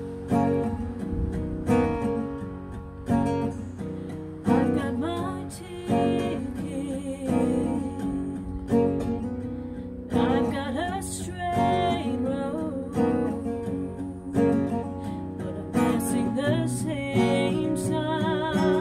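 Acoustic guitar strummed in a steady rhythm, with a woman's singing voice joining it about four seconds in and carrying a melody over the chords.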